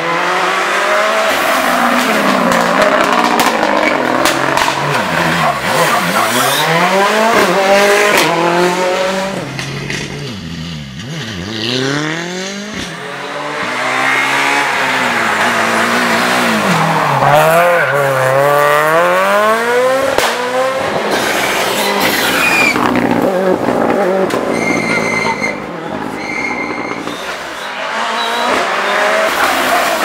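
Rally cars passing one after another at full attack, engines revving hard, their pitch climbing and dropping again and again through gear changes and braking into the bends. It dips between cars and then builds again for the next one.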